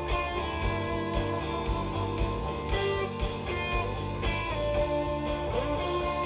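Band music with guitar playing.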